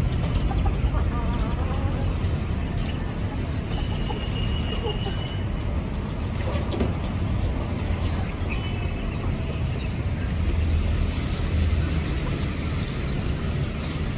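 Steady low outdoor rumble, with a couple of faint, short high bird chirps about four seconds in and again near nine seconds.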